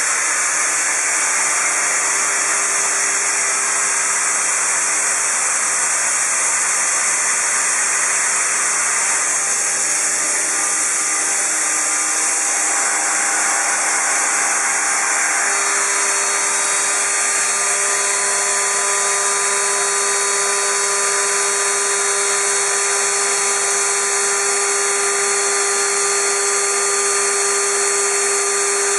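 Shoda CNC router trimming a pressure-formed plastic keyboard cover: a steady, loud high hiss with the spindle's whine over it. About halfway through, a steady hum grows stronger.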